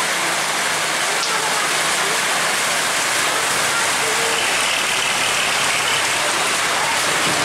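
A tank truck's diesel engine and its tyres on the wet road as it drives past in steady heavy rain, with the hiss of the rain throughout.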